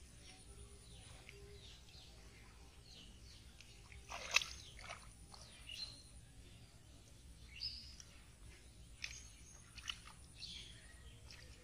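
Short splashes of shallow muddy water as hands grab at a carp, the loudest about four seconds in, followed by several smaller ones.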